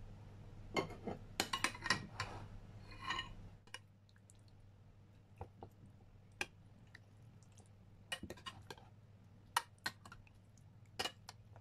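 A metal spoon clinking against a glass baking dish as a raw chicken leg is handled and turned in its marinade: a busy run of clinks over the first three seconds or so, then scattered single clinks.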